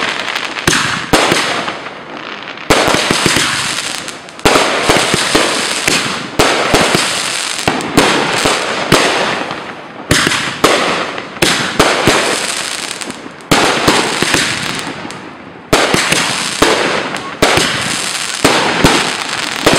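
Aerial fireworks bursting close overhead: a sharp bang about once a second, each one trailing off in crackling.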